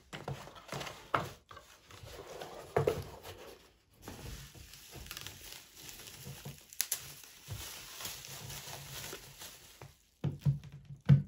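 Handling noise from unpacking: paper rustling and plastic bubble wrap crinkling as a digital multimeter is pulled out of its bubble-wrap bag, with a few knocks near the end as the meter is set down on a wooden table.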